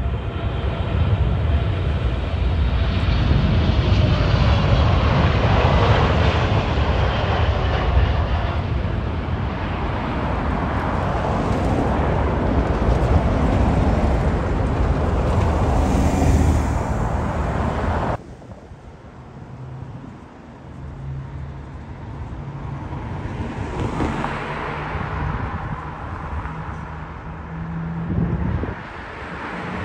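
Jet engines of an airliner landing close by: a loud rumble with whining tones that glide downward as the plane passes. About 18 seconds in the sound cuts off abruptly to quieter engine and traffic noise with a steady low hum, which swells again near the end as another jet approaches.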